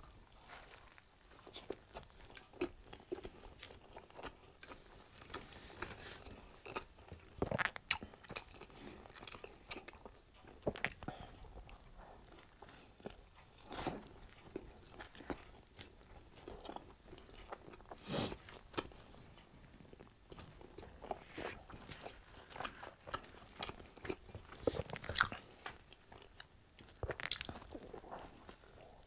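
Close-miked biting and chewing of potato wedges, with irregular sharp mouth clicks and smacks.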